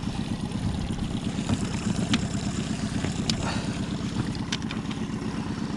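A boat's motor running steadily, with a few light clicks over it.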